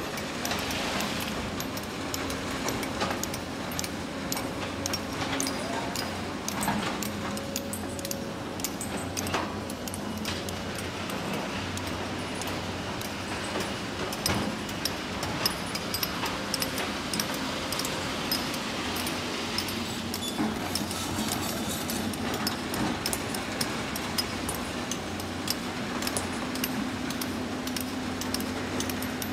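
Diesel excavators and dump trucks running in a rock pit, with faint steady engine hums and frequent sharp clinks and clatter of stones.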